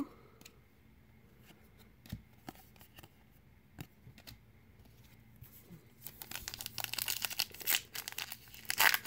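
Faint taps and clicks of cards and a cardboard box being handled, then from about six seconds in, loud crinkling and tearing of a wrapped Donruss baseball card pack being pulled from the box and opened.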